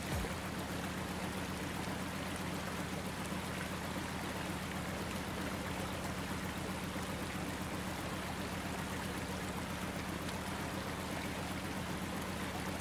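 River ferry's engine running with a steady low hum, under the even rush of water along the hull.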